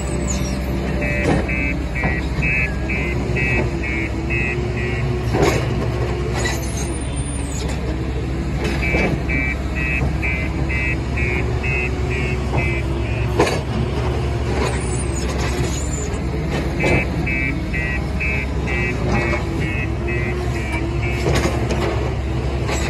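JCB telehandler's diesel engine running steadily as it loads sand, with a reversing alarm beeping in three spells of about four seconds, roughly three beeps a second. A few sharp knocks stand out over the engine.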